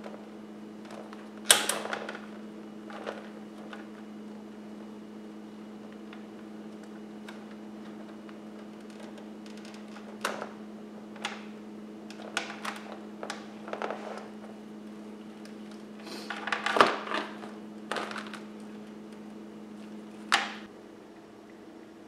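Scattered clicks, knocks and rustles of hand tools and parts being handled during hands-on work, with the loudest clatters about a second and a half in and around sixteen to seventeen seconds in. A steady electrical-sounding hum runs underneath and cuts off shortly before the end.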